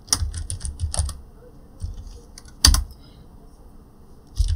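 Typing on a computer keyboard: a quick run of keystrokes in the first second, then a pause broken by a single loud key press a little under three seconds in.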